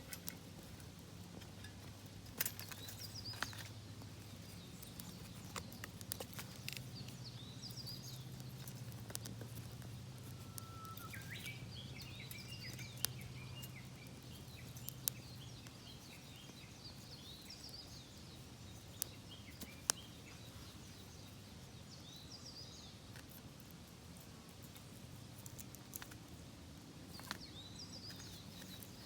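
Scattered sharp snaps and crackles from a small twig fire being lit and fed in a Bushbox pocket stove, with birds chirping now and then.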